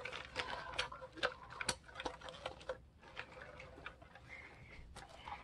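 Light, irregular clicks and rustles of punched paper pages being worked onto the loops of binding wire. The clicks come thick in the first three seconds and thin out after.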